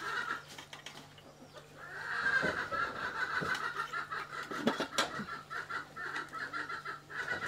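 Domestic chickens clucking in a rapid run of short repeated notes, with a few sharp clinks of a spoon and dishes in the middle.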